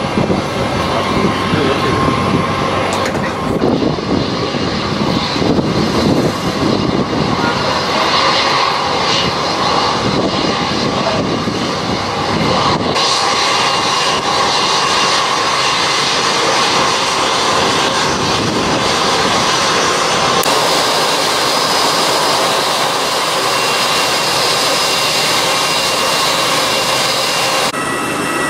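Twin-jet airliner's engines: a heavy low rumble as it rolls along the runway, then, after an abrupt change about halfway through, a steadier jet whine with high steady tones as it taxis. The sound changes abruptly a couple more times, like edits between shots.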